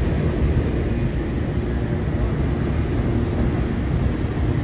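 Hot-air balloon's propane burner firing in a long, steady blast into the envelope during inflation.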